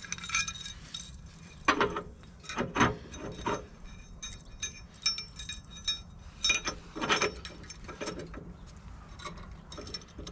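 Steel clinks and knocks as a ball sleeve is fitted onto an implement's pin and a linch pin on a small chain is pushed through to lock it, the chain jangling. The clinks come in clusters, loudest about two to three and a half seconds in and again around seven seconds.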